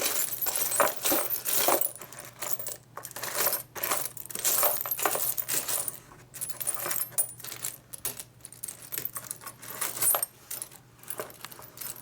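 Loose metal washers clinking and rattling against each other, many small irregular clicks, as a box of assorted washers is rummaged through.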